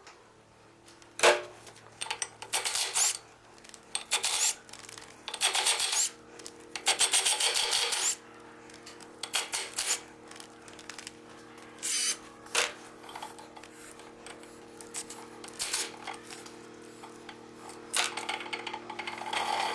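Workshop tool and metal-part noises from an engine being taken apart: irregular scraping and rubbing, clinks, and a sharp knock about a second in.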